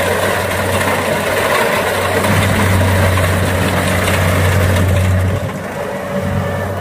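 Kubota DC70 rice combine harvester's diesel engine running steadily with its cutter and threshing gear working as the tracked machine crawls through soft, wet paddy. A steady low hum with a rattly mechanical wash above it, easing a little about five seconds in.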